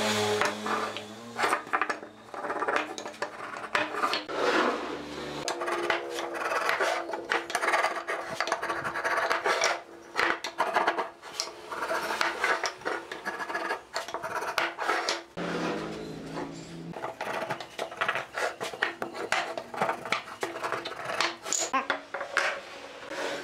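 Two-pin wooden marking gauge scratching along a hardwood board as it scribes layout lines, in repeated short scraping strokes. Wooden boards knock and clatter as they are handled on the bench.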